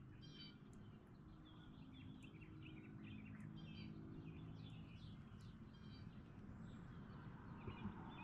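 Faint birds chirping and calling, many short notes scattered throughout, over a low steady hum.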